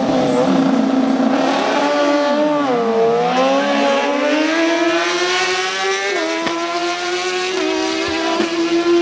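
Two inline-four superbikes, a BMW S1000RR and a Suzuki GSX-R1000, accelerating hard in a drag race. The high engine note dips sharply about three seconds in, then climbs steadily with a couple of brief steps in pitch.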